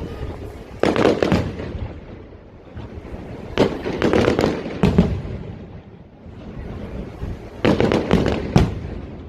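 Fireworks display: three volleys of aerial shells bursting, each a cluster of sharp bangs with crackle and a low rumble, coming about a second in, around four to five seconds in, and near eight seconds in.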